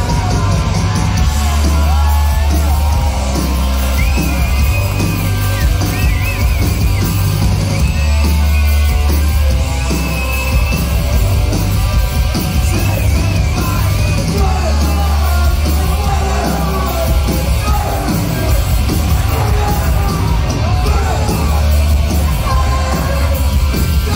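Punk band playing live and loud in a club hall, with a heavy low end and yelled, shouted vocals over the music.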